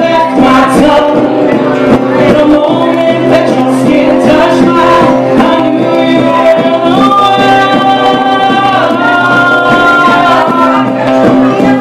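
Live acoustic music: acoustic guitar with singing, the voice holding long notes about seven to nine seconds in.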